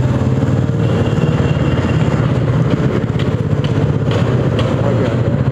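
Royal Enfield motorcycle engine running steadily at low road speed, heard from the rider's seat, with a few light ticks about half a second apart near the middle.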